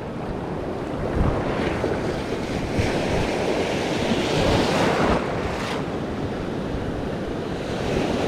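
Ocean surf breaking and washing ashore, swelling louder for a couple of seconds midway, with wind buffeting the microphone.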